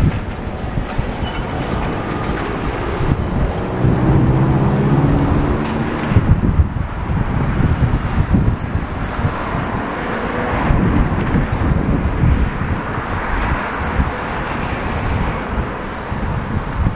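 Continuous urban traffic noise of vehicles passing, with wind buffeting the microphone; a passing engine hum stands out about four seconds in.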